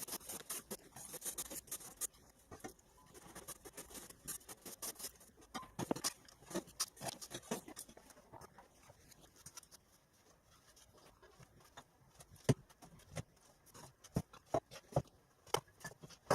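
Scattered scrapes, clicks and knocks of rubble and bricks being moved by hand, irregular and faint. It is quieter in the middle, with a few sharper knocks near the end.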